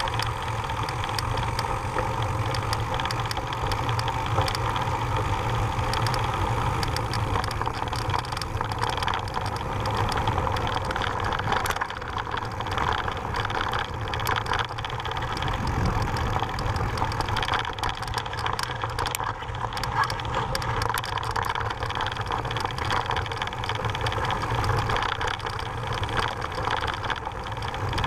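Mountain bike riding over a dirt and gravel trail: steady wind rumble on the camera microphone, with tyres crunching over gravel and scattered clicks and rattles from the bike.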